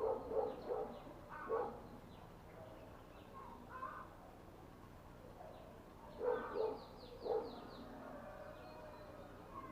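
Animal calls in short clusters, several near the start and again about six to seven seconds in, with a run of faint high chirps around seven seconds.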